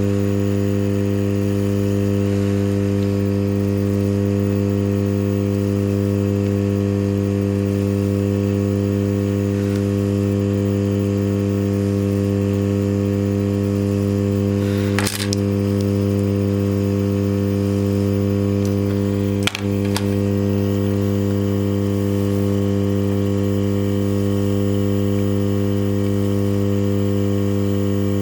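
Steady, loud, low electrical hum with evenly spaced overtones, unchanging throughout, with two short clicks about halfway through and a few seconds later.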